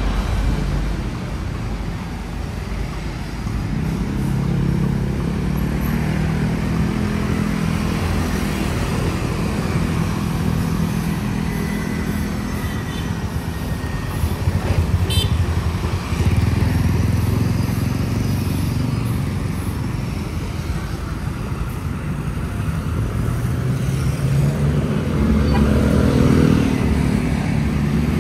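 Road traffic with motorcycles passing close by, their engines swelling and fading one after another over a steady background of traffic noise.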